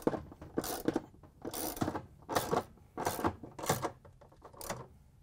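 Ratchet wrench with a 10 mm socket and extension clicking in short back-and-forth strokes as it drives a screw down, about seven strokes under a second apart, stopping near the end.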